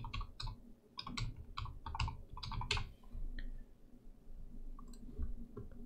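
Computer keyboard typing: a quick run of keystrokes for about three seconds, then a few scattered clicks.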